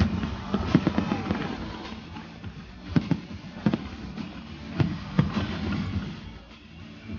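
Aerial firework shells bursting in a display. A quick run of bangs comes in the first second or so, then single bangs follow at intervals of about a second.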